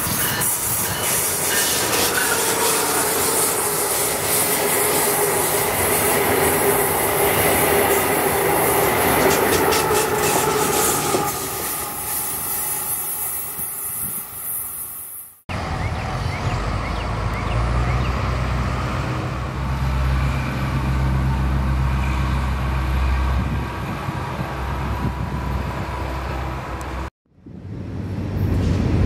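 Miami Metrorail Budd rapid transit train running: for about fifteen seconds its wheels click over the rail joints under steady whines. An abrupt cut then leads to a deeper rumble with a high whine that rises briefly, and another cut comes near the end.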